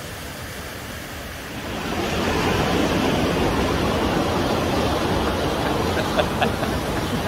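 Steady rush of white water pouring over a river weir, getting louder about two seconds in.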